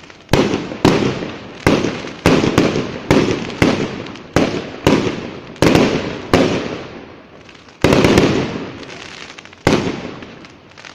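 Fireworks display going off: about a dozen sharp bangs at irregular intervals of half a second to a second, each trailing off in a rumbling echo, with a quick cluster of crackling reports about eight seconds in.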